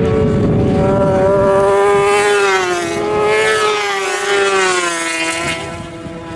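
Racing motorcycle engine at high revs passing at speed, its high pitch wavering up and down and drifting lower as the bike pulls away; it grows quieter near the end.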